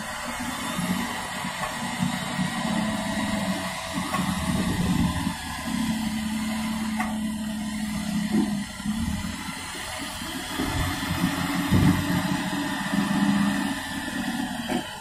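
A vehicle's engine running, a low steady hum that shifts in pitch and loudness now and then.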